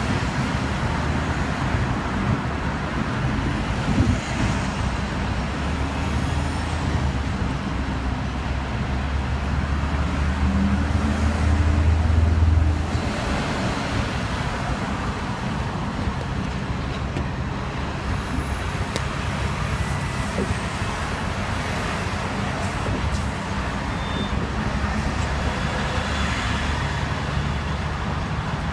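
Hong Kong double-decker tram running along its street tracks, heard from the upper deck: a steady rumble mixed with surrounding road traffic. A louder low rumble builds about ten seconds in and cuts off suddenly a few seconds later.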